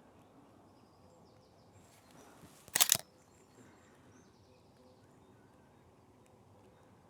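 Sony A7IV camera shutter firing a quick burst of three or four frames a little under three seconds in, over quiet outdoor ambience with faint bird calls.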